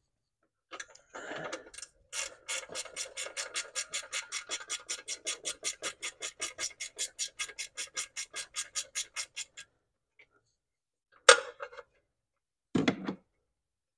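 Ratchet wrench clicking steadily at about five clicks a second for around seven seconds as a nut is worked off. A sharp knock follows near the end, then a short thud.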